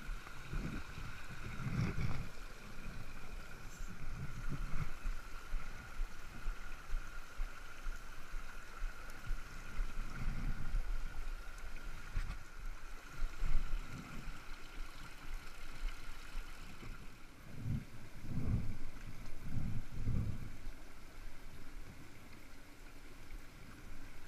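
Small rocky mountain stream running over boulders, a steady rush of water. A few low thumps on the microphone, several of them close together later on.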